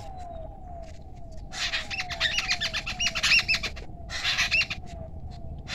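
Birds calling: two bursts of rapid, high chirping, about a second and a half in and again about four seconds in, over a low falling note repeated about twice a second.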